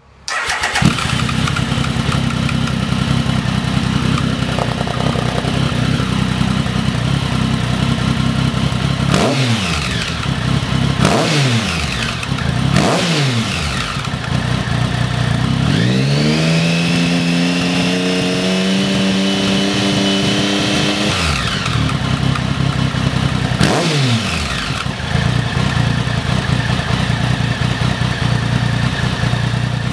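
A 2013 Triumph Speed Triple's 1050 cc inline-three idling through a Lextek RP1 aftermarket silencer with its baffle fitted. The rider blips the throttle three times in quick succession, about two seconds apart, then holds the revs up for about six seconds before letting them drop. One more quick blip follows, then it settles back to idle.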